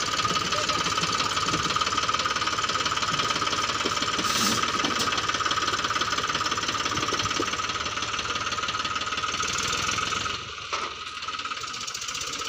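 Eicher 333 tractor's three-cylinder diesel engine running under load, pulling a trailer heaped with stone chips, with a rapid even firing beat. It becomes noticeably quieter about ten seconds in.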